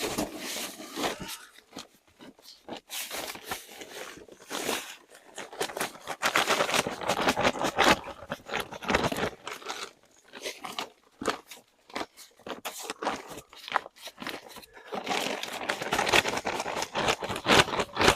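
Hands digging and rummaging through potting soil in a fabric grow bag to find sweet potatoes: irregular bouts of crunching and rustling, heaviest in the middle and again near the end.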